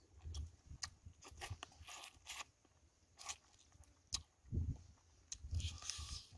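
A person eating with the fingers, biting and chewing food: irregular small clicks and mouth smacks over soft low chewing thuds.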